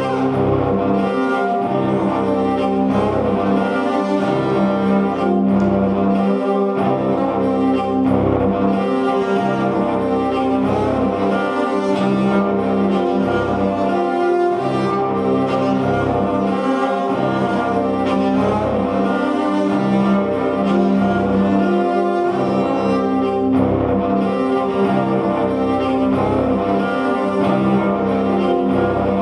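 Electric cello played with a bow in a dense, sustained passage with many overlapping notes, over a low line that pulses about once a second.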